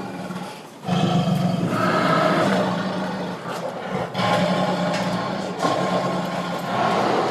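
Tiger roaring and growling in long, rough calls, three in a row after a brief pause just under a second in.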